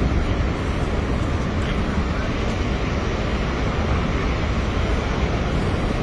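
Steady rushing roar of Niagara Falls, an even, unbroken wash of water noise that is heaviest in the low end, with faint voices of the crowd.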